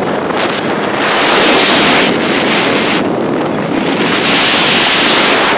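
Wind buffeting the microphone and water rushing past the hull of a motorboat under way, a loud steady hiss that swells louder about a second in and again from about four seconds in.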